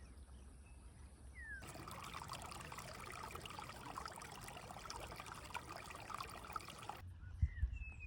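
Water trickling in a dense, even crackle that starts abruptly a moment in and cuts off abruptly about a second before the end. Before and after it, a few faint short bird chirps; near the end, a few loud low thumps.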